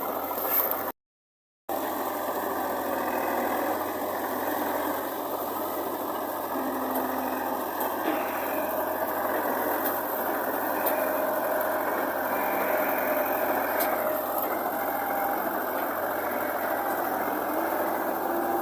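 Diesel engine of heavy farm machinery running steadily. The sound cuts out completely for under a second, about a second in.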